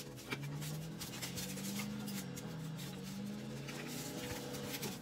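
Soft background music with sustained low notes that slowly bend in pitch, over scattered light clicks and rustles.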